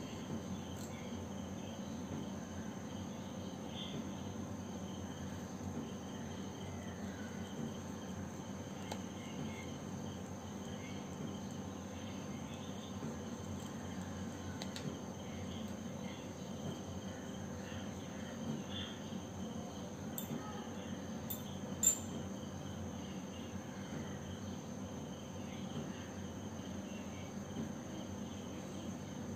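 Crickets chirping steadily in the background, with a few sharp clicks about twenty seconds in, the loudest near the end of that run.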